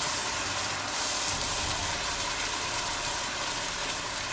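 Water sizzling and steaming on green curry paste frying in oil in a hot pan: a steady hiss.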